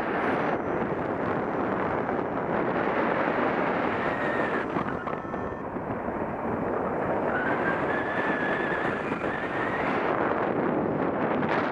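Steady rush of wind buffeting an action camera's microphone, as in paraglider flight. A faint high whistle comes and goes twice.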